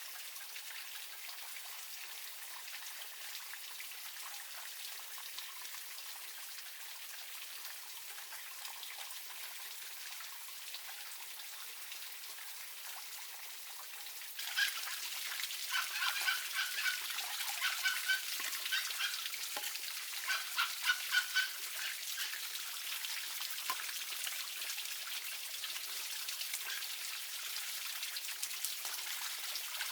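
Steady rain patter. About halfway through it steps up louder, and a run of short, repeated bird calls sounds over the rain for several seconds.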